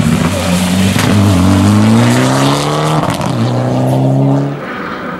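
Mitsubishi Lancer Evolution X rally car's turbocharged four-cylinder engine accelerating hard. The pitch rises, breaks for an upshift about three seconds in, and rises again before the sound drops away sharply near the end.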